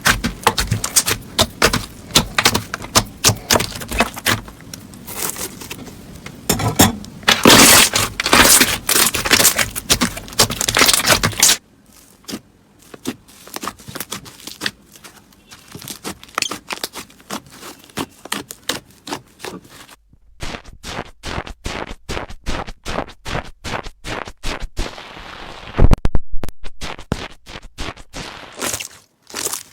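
Slime being pressed and squeezed by hand, giving a dense run of crackling and popping clicks. The sound changes abruptly twice, about a third and two-thirds of the way through, as one clip gives way to the next.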